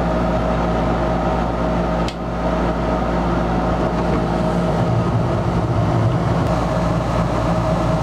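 Gas furnace's exhaust (draft inducer) fan running with a steady hum. About two seconds in there is a sharp click as the gas valve opens and the burners light off the glow igniter, and the burner flames then add to the steady running sound.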